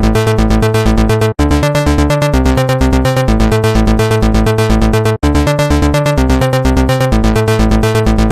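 Electronic dance music with a steady, fast beat and synthesizer notes, briefly dropping out twice.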